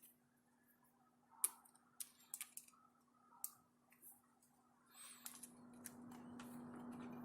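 Faint, scattered clicks and taps of small parts being handled as a chainsaw carburetor's cover is fitted back on, with a soft rustling noise building from about five seconds in.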